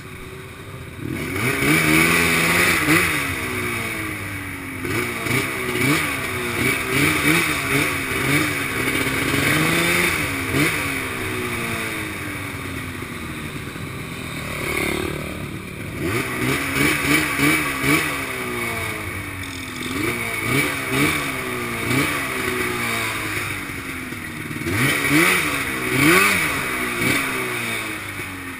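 Racing quad's engine heard onboard, revved up and down in repeated short throttle blips while riding slowly, easing off for a few seconds in the middle before more blips.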